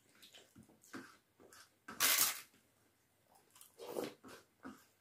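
Close-up eating sounds: crisp papad being broken and crunched while chewing, in a few short bursts, the loudest about two seconds in.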